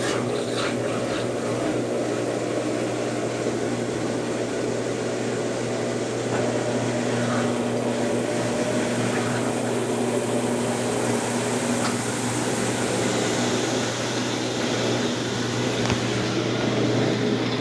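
Consul Facilite CWC10 top-loading washing machine running through its rinse-and-spin cycle with a steady motor hum and the wash noise of the drum.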